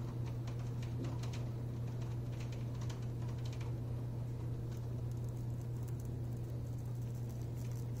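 Rain pattering: irregular drops tapping, thick in the first half and thinning out about halfway through, over a steady low hum.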